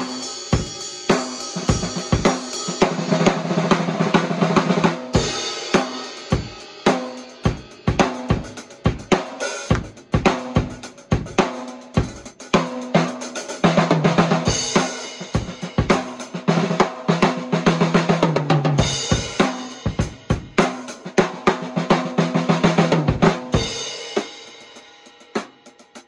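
Custom 14x6 mahogany snare drum, tuned fairly high, played with rim shots: sharp ringing strokes and fast rolls. The strokes thin out near the end.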